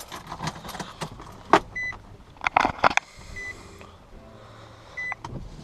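A car's warning chime beeping three times, slow and evenly spaced, amid clicks and knocks from inside the car; the loudest is a quick run of sharp knocks about two and a half to three seconds in, and a short hiss follows.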